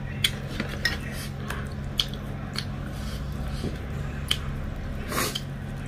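Close-up eating sounds: scattered sharp, wet clicks and smacks from chewing and from fingers working chicken in curry, with a longer smack near the end, over a steady low hum.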